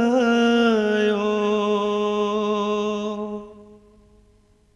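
A singer holding one long sung note at the end of a line of a Kashmiri song, wavering at first and then steady, dying away about three and a half seconds in.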